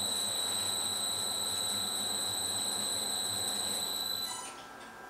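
Smart and Brown 1024 lathe running in screw-cutting gear: a steady high-pitched whine over a low hum. The whine dies away about four seconds in as the lathe is stopped.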